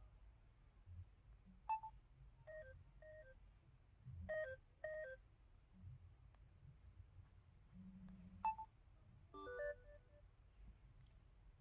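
LG-LB4400 mobile phone's low-battery alert: short electronic beeps in a few small groups, signalling a low battery. About three seconds later comes its service-area alert: a single beep, then a quick run of stepped tones.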